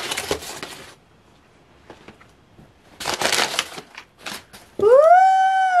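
Packing material rustling in a cardboard shipping box as a foam sheet is lifted out and the packing paper is handled, in two short spells with a pause between. Near the end a woman's voice rises into one long, high, wordless note, louder than the rustling.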